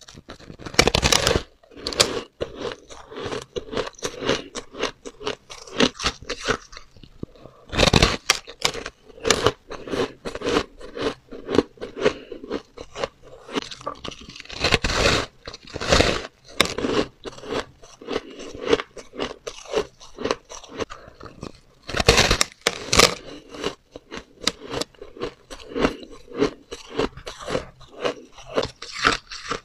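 Close-miked crunching of blue-coloured soft shaved ice being bitten and chewed: a dense, uneven run of crisp crunches, with several louder bites scattered through.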